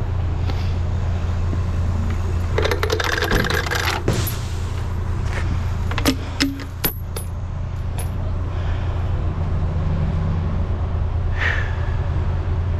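An engine running steadily at idle, with a flurry of metallic clinking and rattling about two and a half seconds in and a few sharp metal clanks around six to seven seconds in.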